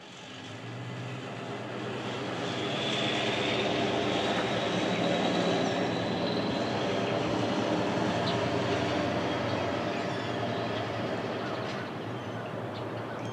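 Federal Signal 2001 electromechanical outdoor warning sirens sounding a growl test: a low, steady siren tone that builds over the first few seconds, holds, then starts to fade near the end.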